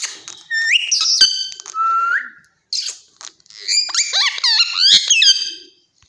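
Indian ringneck parakeets calling: rising whistled calls in the first two seconds, then a longer run of quick, wavering whistles and squawks in the second half.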